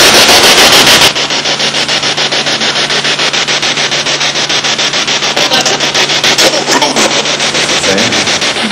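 Spirit box (ITC radio-sweep device) played through a small external speaker: radio static chopped into a rapid, even stutter as it scans station after station. It follows a burst of dense hiss that cuts off about a second in. Brief snatches of voice come through near the end.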